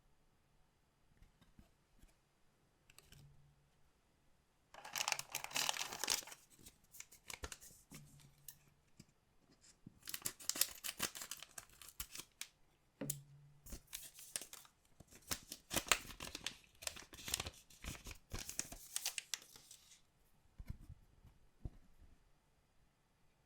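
Collectible card pack wrappers being torn open and crinkled by hand, in three spells of crackly tearing with short pauses between, the longest near the end.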